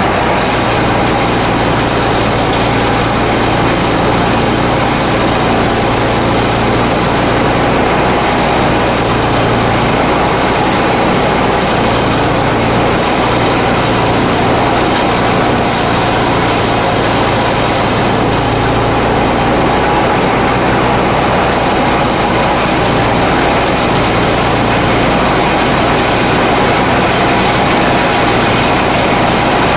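Small engine-driven rice threshing machine running steadily: a continuous engine drone mixed with the rush of the threshing drum, with no change in speed.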